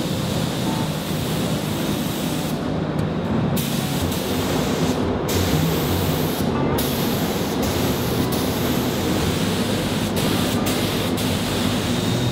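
Gravity-feed paint spray gun hissing steadily as it sprays paint, the hiss breaking off briefly several times.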